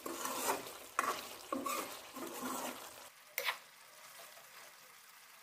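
Metal spatula stirring thick meat-and-potato curry in a stainless steel kadai, a series of short scraping strokes against the pan over the first three and a half seconds. Under it a faint sizzle of the curry cooking on the flame, which is all that is left for the last two seconds.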